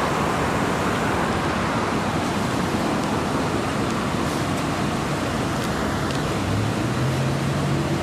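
Steady road-traffic noise, an even rush without breaks; a low hum comes in about six and a half seconds in.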